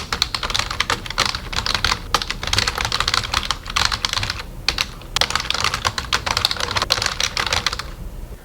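Rapid typing on a computer keyboard: a quick run of keystrokes with a couple of short pauses midway, stopping near the end.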